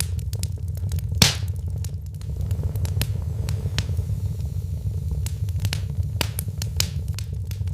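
Wood fire crackling in a fireplace: a steady low rumble of burning with frequent small snaps and one louder pop about a second in.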